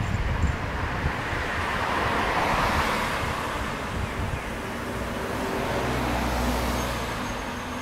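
Road traffic, with a car passing close by: its tyre and engine noise swells to a peak about two and a half seconds in, then fades as it drives away. Low rumble of other traffic underneath, with wind buffeting the microphone near the start.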